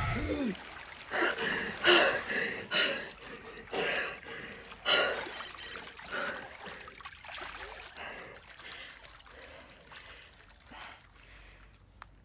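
A woman gasping for breath as bathwater splashes and sloshes around her in a bathtub. The gasps and splashes come in quick irregular bursts that grow fainter over the last few seconds.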